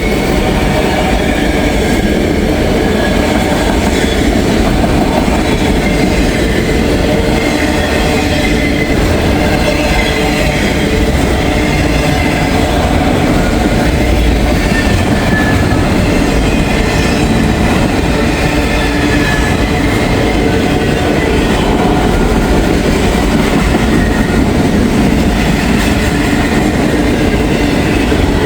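Freight train rolling past close by: a steady, loud rumble of rail cars on the track with clickety-clack from the wheels, and thin high wheel squeals that come and go.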